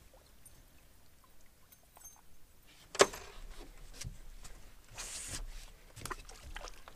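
A chain pickerel being lifted out of the water by hand and handled in the boat: a sudden sharp splash and knock about three seconds in, then scattered light knocks and a brief rush of dripping water.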